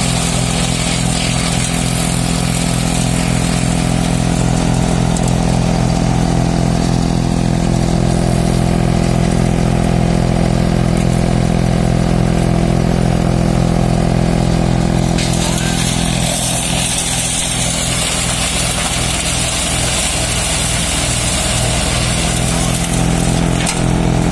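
Engine-driven tree-grinding machine (brush shredder) running steadily under load as branches are fed into it: a constant engine drone under a rushing, grinding noise, with the high hiss growing stronger about fifteen seconds in.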